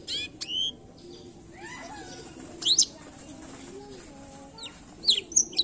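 Blackthroat (black-throated canary) singing in short, separated phrases of chirps and high whistled notes, with a quicker run of notes near the end.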